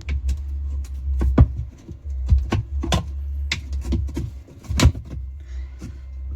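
Irregular knocks and clicks of washing-machine parts being handled and fitted during reassembly, over a steady low hum.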